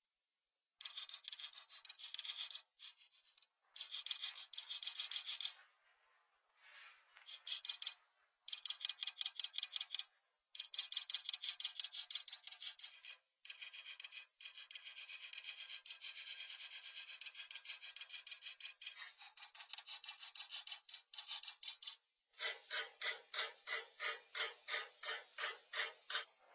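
Pastel crayon scratching back and forth on paper in bursts of quick colouring strokes, about four to five strokes a second near the end.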